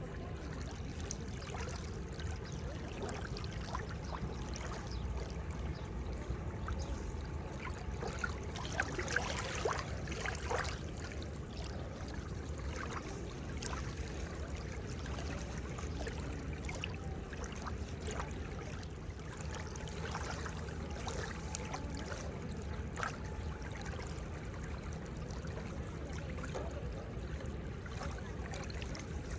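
Seawater washing and lapping at the shore, a steady wash with many small splashes and trickles, busier about nine to eleven seconds in.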